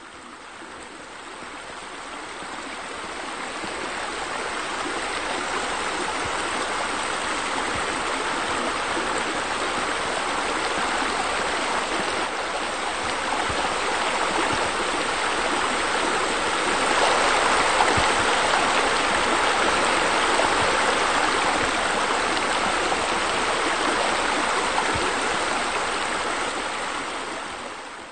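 Steady rush of running water, fading in over the first few seconds and fading out at the end.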